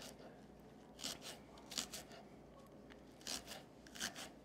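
Kitchen knife slicing scallions on a wooden cutting board: about eight soft, uneven chops, several in quick pairs.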